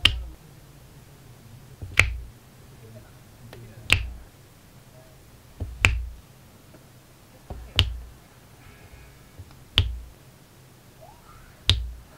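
Diamond-painting drill pen pressing resin drills onto the sticky canvas: a sharp click with a soft thud about every two seconds, seven in all.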